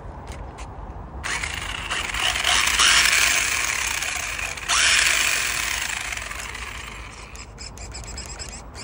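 Electric motor and geared drivetrain of a hand-held RC short-course truck spinning its wheels in the air under throttle. The whir starts about a second in, jumps louder again about halfway through, then winds down toward the end.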